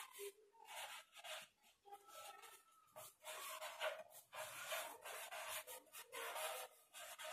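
Whiteboard marker writing on a whiteboard: a run of short, faint, scratchy strokes with an occasional squeak.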